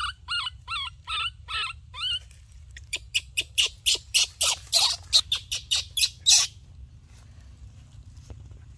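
Baby macaque crying: a run of short, wavering whimpers about two a second, then a faster string of harsher screeches that grows louder and stops suddenly.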